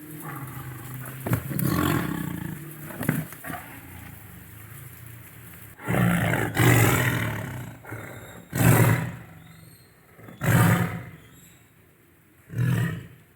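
Tiger roaring in a series of separate calls. A longer call about six seconds in is followed by shorter roars roughly two seconds apart.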